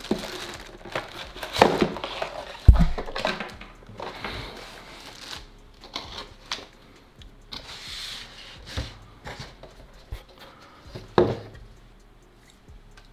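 A cardboard box being opened and its packaging handled: scattered rustling and crinkling, with a dull thump about three seconds in and a sharp knock near the end.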